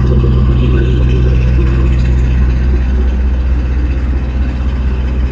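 Generator engine running steadily, heard at its 4-inch exhaust outlet through the house wall: a constant low hum, similar to a car muffler.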